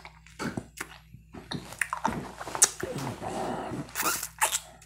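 Close-up mouth sounds of sucking a Charms Blow Pop lollipop: a run of wet clicks and smacks, busier around the middle.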